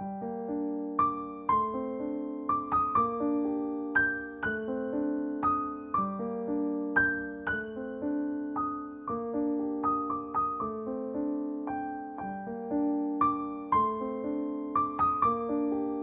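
Background piano music: a gentle, repeating melody of notes struck about twice a second, each left to ring and fade.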